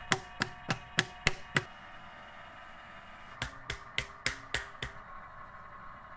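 Sharp knocks on an earthenware jar in two quick runs of about six strokes each, roughly three to four a second, with a short ringing after several strokes.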